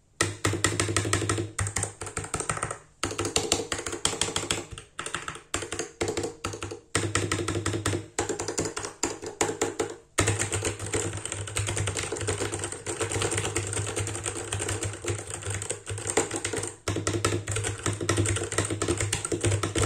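Typing on a Keychron K6 mechanical keyboard with red switches, linear and not clicky: a fast, dense run of keystrokes that pauses briefly about three, ten and seventeen seconds in. Background music plays underneath.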